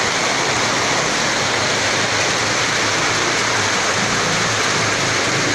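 Floodwater rushing through a flooded house: a steady, unbroken rush of water.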